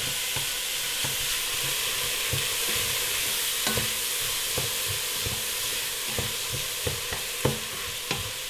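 Onions and tomato paste sizzling in oil in a stainless steel pot while a wooden spoon stirs them, scraping and knocking against the pot bottom and sides in irregular soft knocks over a steady hiss.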